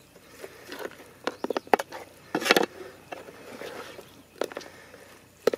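Flat metal spatula clinking and scraping against a metal cooking pot while stirring thick chicken curry, in irregular strokes, loudest about two and a half seconds in.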